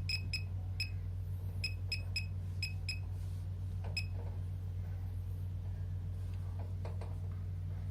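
Laser projection keyboard giving a short electronic beep for each projected keystroke, about a dozen beeps at an irregular typing pace that stop about four seconds in. A steady low hum runs underneath.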